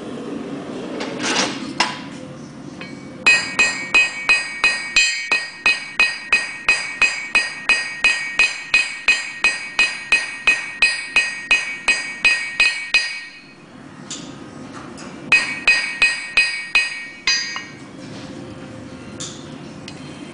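Hand hammer striking red-hot steel on an anvil: a steady run of about thirty blows, roughly three a second, each with a bright metallic ring. After a pause comes a shorter run of about seven blows. A low steady rumble sits under the quieter stretches.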